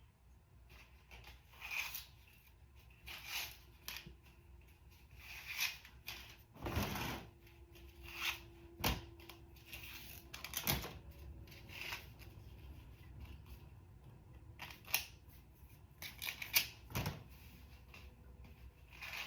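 Hair rollers being pulled out of hair and dropped into a bag one after another: irregular rustles and sharp plastic clicks every second or two.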